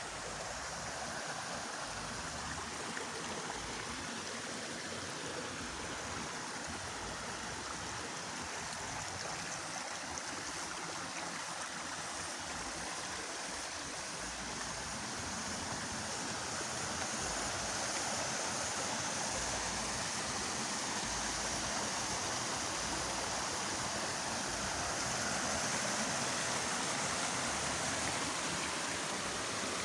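Fast-flowing water rushing steadily, growing a little louder about halfway through.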